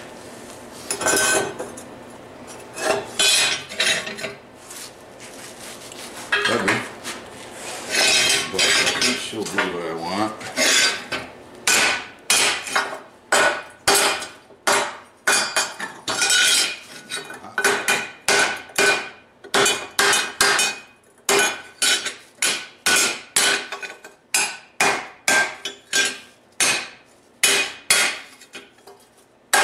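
Steady hand-hammer blows on steel, about two a second, each with a short metallic ring, as a forged steel hand is worked. The first several seconds hold irregular clanks and scrapes of metal on metal.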